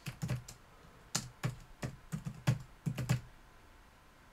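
Computer keyboard keystrokes: a quick, uneven run of key clicks as a short command is typed, stopping a little after three seconds in.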